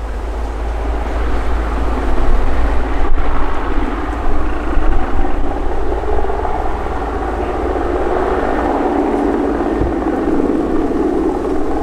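Mi-24 Hind attack helicopter in flight: its twin turboshaft engines and main rotor run with a steady, loud noise that grows stronger in the last few seconds. A brief click comes about three seconds in.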